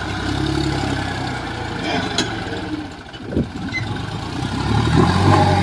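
John Deere tractor's diesel engine labouring under heavy load as it tries to haul a loaded trolley out of soft ground. The engine note eases around the middle, with a short knock, then pulls hard again near the end.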